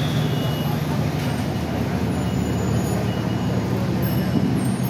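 Steady low hum of idling heavy vehicle engines with street traffic around.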